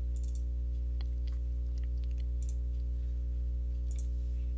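Steady low electrical hum from the recording setup, with a scattering of faint computer mouse clicks.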